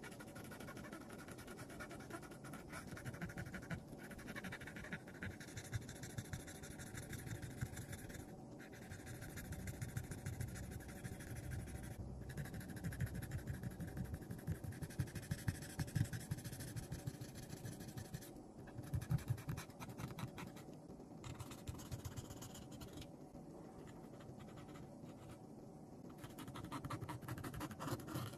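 Cotton swab scrubbing along the inside of an iPhone 12 Pro's metal frame and shields: a steady, fast scratchy rubbing with a few brief pauses.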